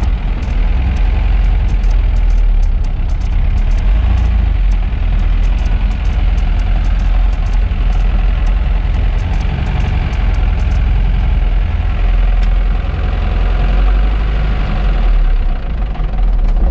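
Car engine running steadily with a strong low rumble and no break.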